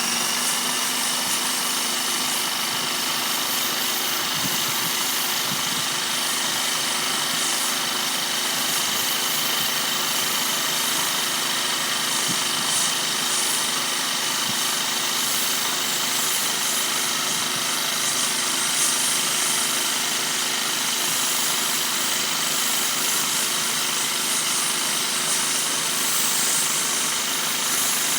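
Paint sprayer running steadily while spraying a garage door: a constant machine hum with a strong hiss from the spray.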